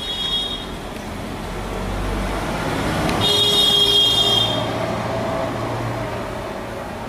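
Road traffic running, with a vehicle horn sounding briefly at the start and again for over a second about three seconds in, over water being poured into a plastic bottle.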